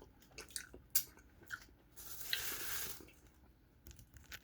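Duck sauce packet being opened and squeezed out. A few small clicks and crinkles come first, then about a second of wet, squishy hiss as the sauce comes out.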